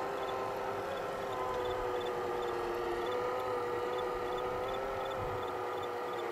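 Small radio-controlled boat's electric motor running, a steady whine of two close tones that waver slightly in pitch.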